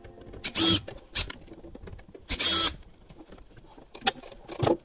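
Two short scraping noises about a second and a half apart, with a few light clicks between and after, as a plastic wall plate is worked loose and pulled down from the wall.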